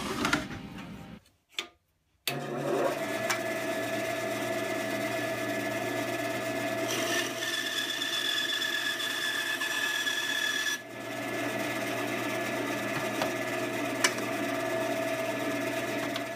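Craftsman 10-inch bandsaw running and cutting 3/4-inch plywood: a steady motor hum with the blade's whine over it. The sound drops out for about a second near the start, and a higher whine joins in for a few seconds past the middle.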